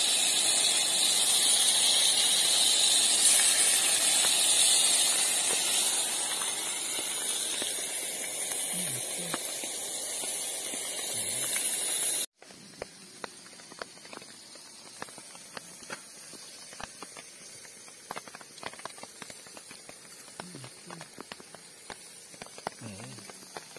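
Steady loud hiss of cooking on a camp stove, easing a little after about six seconds. About halfway through it cuts off abruptly, leaving a much quieter stretch with scattered small clicks.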